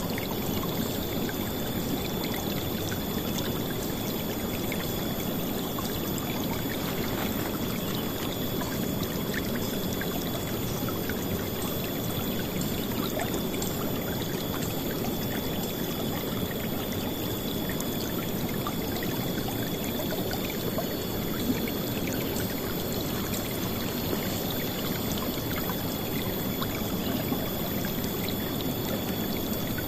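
River water flowing steadily over rocks: a constant, loud rush and splash.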